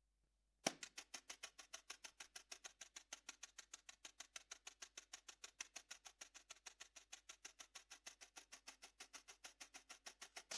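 Wire brushes tapping a snare drum in a quick, even rhythm of about seven strokes a second, starting sharply about a second in with a louder first stroke.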